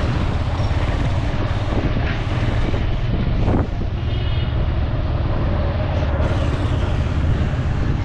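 Suzuki GS 150 motorcycle's single-cylinder engine running steadily as it rides through flood water, with a constant rush of noise over the low engine rumble.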